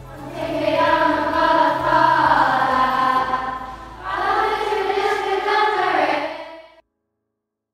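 A group of schoolgirls singing together in two held phrases with a short break between them, cut off abruptly near the end.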